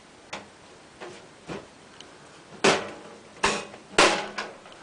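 A series of knocks and clunks from a computer case and its panels being handled: a few light taps early on, then three louder clunks about two and a half to four seconds in.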